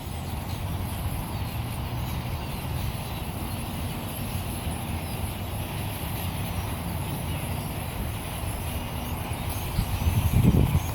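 Birds calling, with faint short chirps over a steady low rumble; the rumble surges louder near the end.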